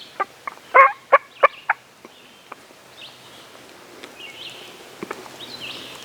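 Turkey calling: a quick series of about six loud, evenly spaced notes in under two seconds, the loudest about a second in. Small birds chirp faintly after.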